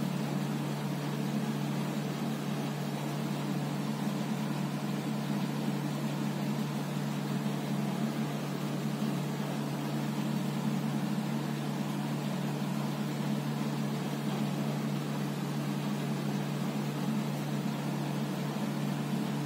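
Steady low hum over an even hiss, with no change in level or pitch.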